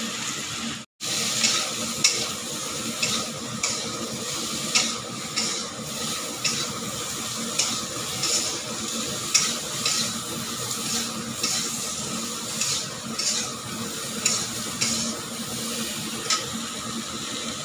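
A metal spatula stirring and scraping pieces of hog plum around a hot iron kadai, in short strokes about once or twice a second, over a steady sizzle of frying in mustard oil. The sound drops out briefly about a second in.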